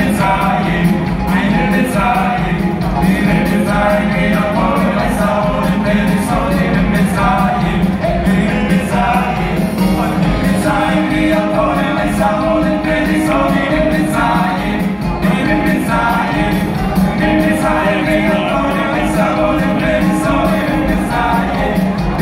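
Male singers and a boys' choir singing a lively song together in unison, with band accompaniment, loud and steady.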